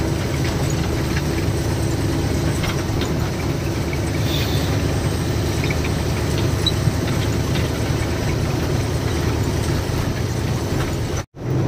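Ashok Leyland ten-wheeler goods truck's diesel engine running steadily on the road, heard from inside the cab with tyre and road noise. The sound drops out for an instant near the end.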